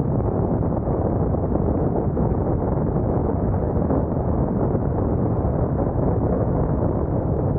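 Steady low rumble of wind and road noise from a moving vehicle, unchanging throughout.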